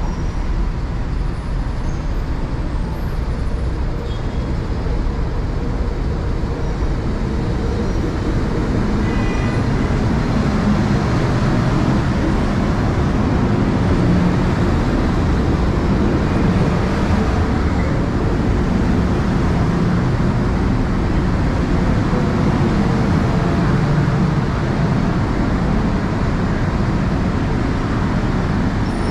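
MTR M-Train electric multiple unit running into a station platform: a steady rumble of wheels and traction equipment that grows louder from about ten seconds in.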